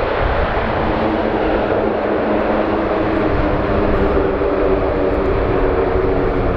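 Airbus A400M's four Europrop TP400 turboprop engines and scimitar propellers running on the runway: a steady propeller drone with several held tones.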